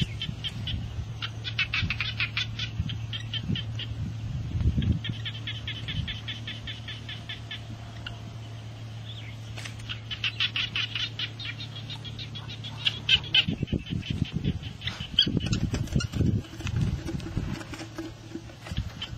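Rapid high chirping in trilled runs of a few seconds each, over a steady low hum. About two-thirds of the way in the hum stops and rustling and soft thumps of hands handling a catch in grass take over.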